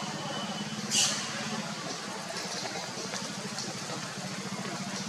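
An engine running steadily at idle, a low even hum, with one short sharp noise about a second in.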